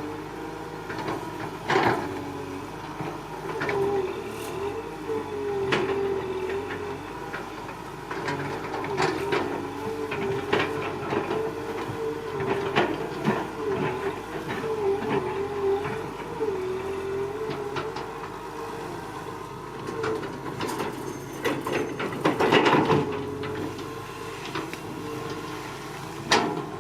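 Excavator running, with a wavering whine from its engine and hydraulics and scattered clanks and knocks from the machine at work. A louder clattering spell comes about two-thirds of the way through, and a sharp knock near the end.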